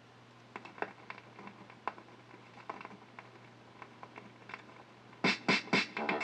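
Vinyl record's lead-in groove under the stylus: scattered crackles and pops over a steady low hum. About five seconds in, the record's music starts with a loud beat.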